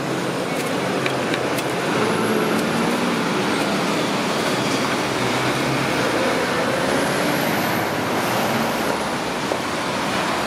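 Road traffic: cars driving over a level crossing close by, with steady engine and tyre noise. A few light clicks come about a second in.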